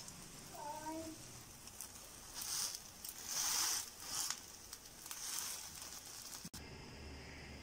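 Omelette frying in a nonstick pan: several short bursts of sizzling hiss as a spatula folds it over with cheese inside. The sizzling cuts off suddenly near the end, leaving a low steady hum.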